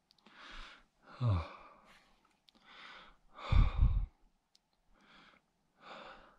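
Heavy, laboured breathing and sighs from an exhausted ultrarunner, about one breath a second, with two louder, deeper exhales, one about a second in and the loudest near the middle.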